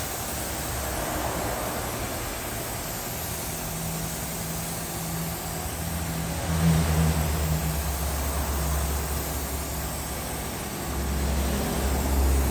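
Air spray gun hissing as it sprays paint onto a pickup body, over the steady low hum of a running motor, likely the air compressor feeding the gun; the hum grows stronger about halfway through and again near the end.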